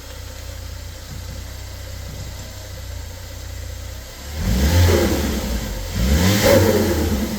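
Ford Focus ST's turbocharged engine idling, then revved twice from about four seconds in, pitch climbing and falling each time, with a hissing turbo flutter as the throttle is lifted.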